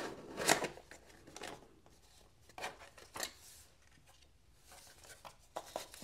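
Cardboard mailer box and its packaging being opened and handled by hand: scattered short rustles, scrapes and light knocks, the loudest about half a second in.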